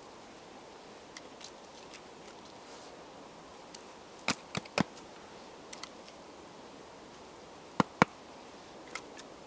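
Sharp cracks of small dry sticks being broken and laid onto a stacked-log fire lay: three close together about four seconds in, then two more near eight seconds.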